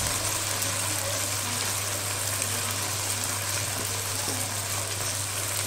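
Ginger-garlic paste and spices sizzling steadily in hot oil in a kadai, an even frying hiss as the masala is browned. A steady low hum runs underneath.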